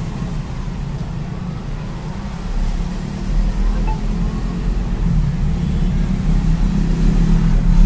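A motor vehicle engine running close by, a steady low rumble that grows louder about three seconds in.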